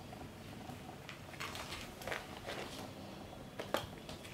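Faint scuffling and rustling of kittens wrestling on a fabric-covered seat, with a cluster of scratchy rustles in the middle and a sharp click near the end.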